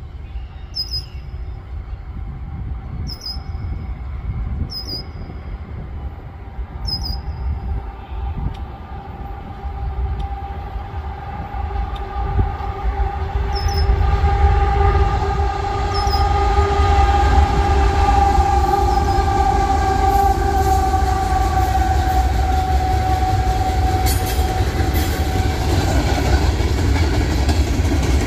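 A CN diesel-hauled freight train approaching and passing. A low rumble builds over the first half, and a steady high tone is held for many seconds, dipping a little in pitch as the locomotive goes by. The freight cars then roll past, and a bird chirps a few times in the first seconds.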